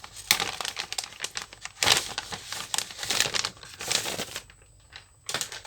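Sealed plastic packaging of a new laptop motherboard crinkling in irregular bursts as it is opened and the board is unwrapped, quieter for the last second or so.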